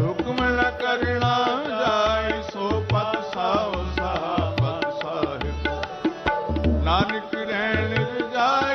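Sikh kirtan: harmonium and a gliding melodic line played over tabla, with deep bass strokes from the tabla's left-hand drum repeating underneath.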